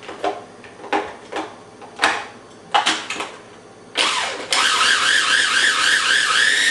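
Mini Cuisinart food processor: a handful of clicks and knocks as the lid is pressed, then about four seconds in the motor starts and runs with a loud whine that wavers up and down, blending egg yolk, garlic, mustard, basil and olive oil into an aioli.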